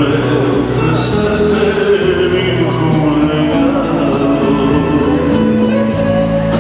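Rumba dance music with a singing voice over a steady percussion beat.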